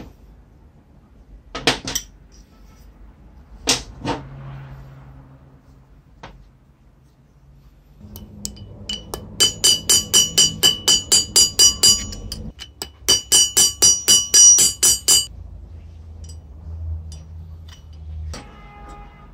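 Hand hammer striking a thin steel strip laid on a steel rail used as an anvil: two runs of quick, ringing metal blows, about four or five a second, with a short pause between them. A few single metal clinks come before.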